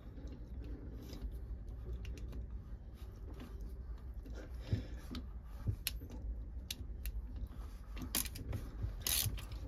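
Scattered small metallic clicks and taps of a hand tool working bolts on an engine, with a quick run of sharper clicks near the end.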